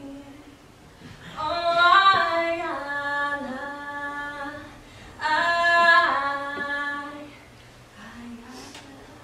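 A woman's voice singing unaccompanied: two long, held phrases, one beginning about a second in and the other about five seconds in, each fading away.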